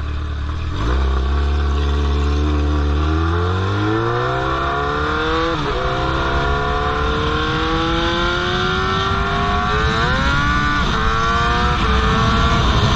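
Straight-piped 2003 Yamaha R1 inline-four accelerating hard. The revs climb steadily, drop sharply with an upshift about six seconds in and another about ten seconds in, then climb again, with a rushing noise building underneath as speed rises.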